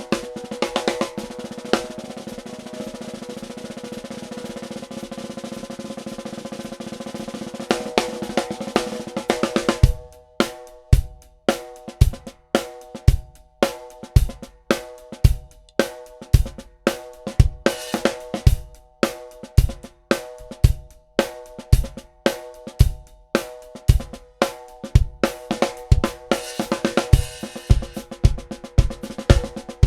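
Ludwig Supralite 14"x6.5" beaded steel snare drum, first played as a continuous roll for about ten seconds with the shell ringing, then in a steady groove with bass drum and hi-hat. A short dense roll comes in near the end.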